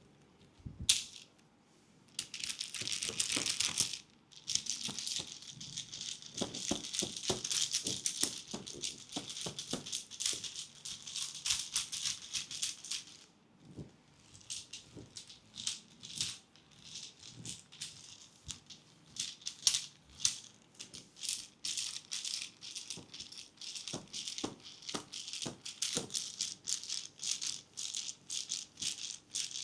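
Rattling like a hand shaker, shaken fast and continuously for about ten seconds, then in separate, evenly spaced strokes.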